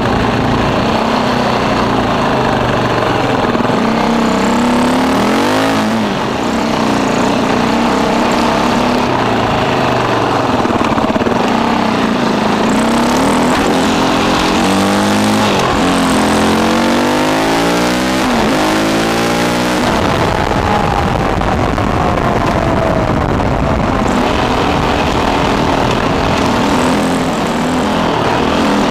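KTM 450 EXC-R dirt bike's single-cylinder four-stroke engine under way, revving up and down through the gears. About halfway through it makes a quick run of rising revs that drop back at each shift, then eases off with a falling note, over a steady rush of wind noise.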